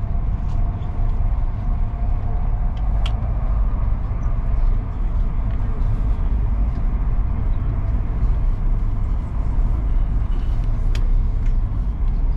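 Steady low rumble of a Chinese high-speed train running at speed, heard inside the passenger cabin, with two brief clicks, about three seconds in and near the end.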